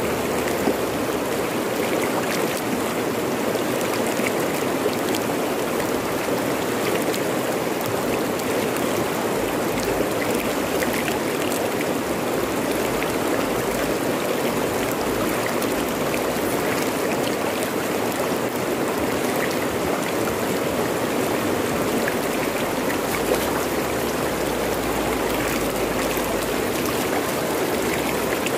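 Fast-flowing river running over rocks: a steady rush of water with scattered small splashes.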